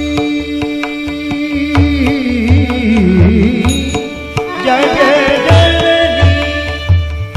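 Indian devotional song music: tabla and a low drum beat under a wavering, gliding melody line, which climbs higher about two thirds of the way through.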